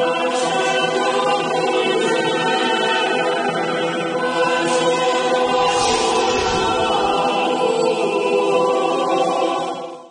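Choral music: a choir singing long held chords. A noisy sweeping sound passes over it about six seconds in, and the music fades out at the very end.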